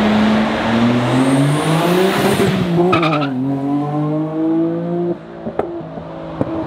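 Nissan Skyline R34 GT-R's twin-turbo straight-six accelerating away, revving up, dropping in pitch at a gear change about three seconds in, then pulling up again before fading out about five seconds in.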